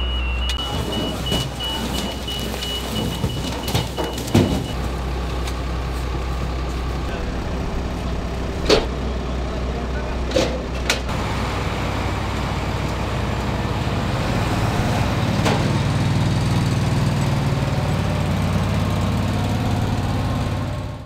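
Truck engine idling steadily under a constant low hum, with a few sharp knocks from cartons being handled. A faint high whine sounds for the first few seconds, and the engine's drone grows stronger in the second half.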